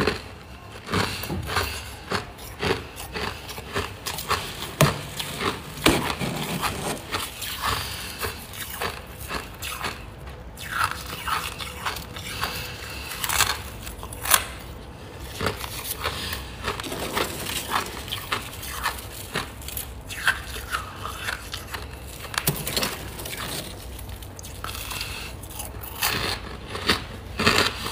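Hard, powdery freezer frost being bitten and chewed, giving many sharp, irregular crunches, with a few brief squeaks.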